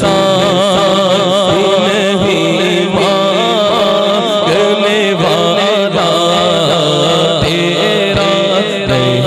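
Male voice singing a naat (Urdu devotional poem) into a microphone, drawing out long, wavering, ornamented notes.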